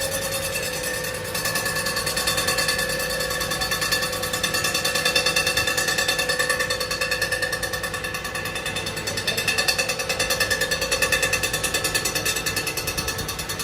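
A power tool running steadily with a fast, even rattling pulse and a steady whine over it.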